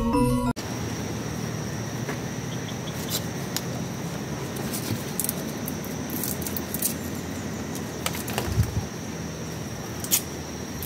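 Intro music cuts off about half a second in. Then a knife works on the stalk of a sugar palm (aren) flower cluster, giving scattered sharp clicks and scrapes over a steady outdoor hiss with a thin high tone.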